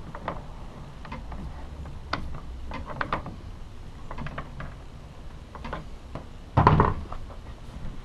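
Scattered light metal clicks and knocks as the retaining nut is turned onto the steel housing of a hot tapping machine, with one heavy thump about two-thirds of the way in.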